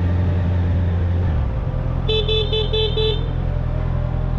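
Motorcycle engine running, its note dropping about a third of the way in as the throttle is closed. A horn then gives five quick short beeps in the middle.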